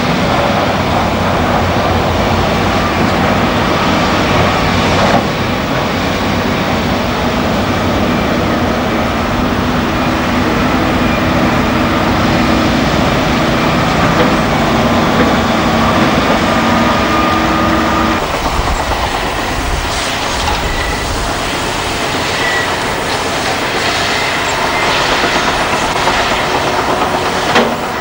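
Heavy diesel earthmoving machinery working rock: the engine of a large hydraulic excavator, a Liebherr R992 among them, runs steadily under load amid rock and steel clatter. About two-thirds of the way through, the engine tone changes abruptly to another machine, with more separate clanks and knocks.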